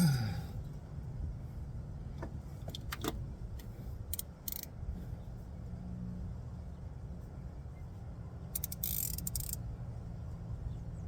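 Metal hand tools clinking and scraping against the underside of a car as a wrench is fitted to a tight fastener during an oil change. There is a short falling tone at the very start, a few sharp clicks a couple of seconds in, and two brief bursts of scraping, over a steady low rumble.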